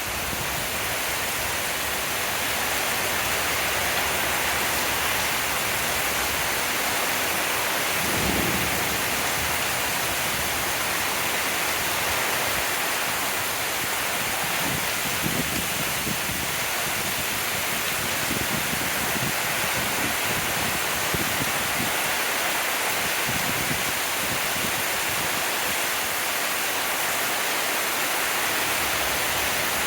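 Steady heavy monsoon rain falling, an even hiss of downpour with brief low swells now and then.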